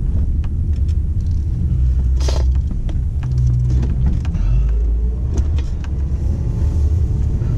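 Car engine and road rumble heard from inside the cabin as the car drives off, with a single knock about two seconds in. The engine note rises about halfway through as the car picks up speed.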